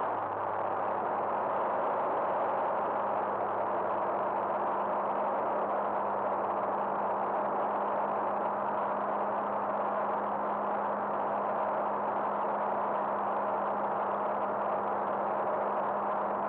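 Cabin drone of a Cirrus SR20 in flight: the piston engine and propeller running steadily, with a constant low hum under airflow noise, heard from inside the cockpit.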